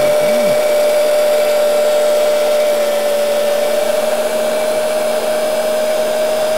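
Handheld electric heat gun running steadily, a whine from its fan over rushing air, as it shrinks heat-shrink tubing over soldered battery wires.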